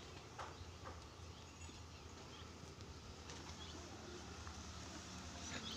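Quiet stable sounds of a horse standing at its feed trough: a few soft, scattered knocks over a low steady hum.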